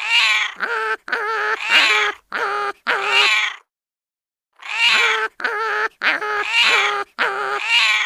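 A run of about six short, high, wavering animal calls in quick succession, a pause of about a second, then a second run of about six similar calls.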